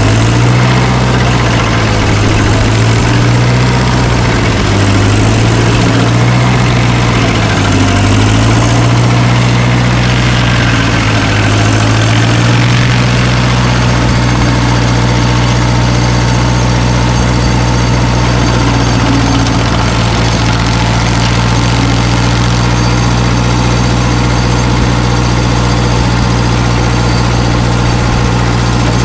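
Engine of a work machine running loudly. Its pitch dips and rises repeatedly, as under changing load, for roughly the first twelve seconds, then holds steady.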